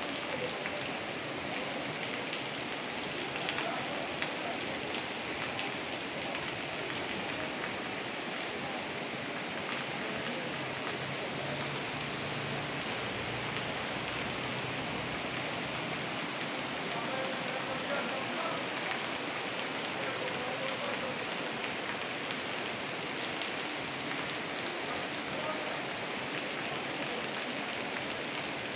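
Steady hiss of heavy rain pouring down, mixed with the rush of a flooding river.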